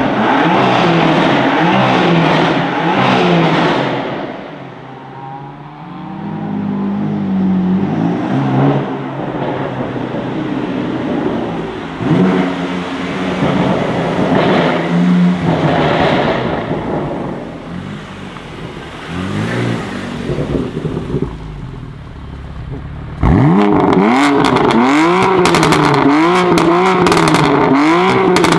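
BMW M4 F82's twin-turbo straight-six revving hard through a full Akrapovic titanium exhaust, the pitch rising and falling again and again. Near the end comes a fast run of blips, about one a second, with sharp exhaust crackles.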